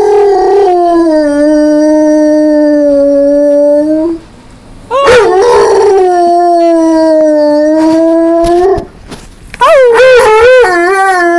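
Dog howling three times in long, drawn-out howls, each sliding slowly down in pitch; the third howl, about ten seconds in, wavers up and down.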